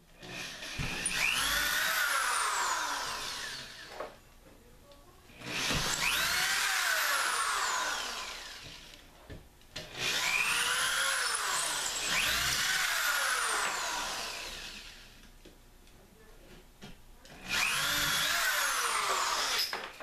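Electric drill with a 1/8-inch wood bit drilling pilot holes into the wall: four runs of a few seconds each with short pauses between. In each run the motor's whine rises as it speeds up and falls as it slows.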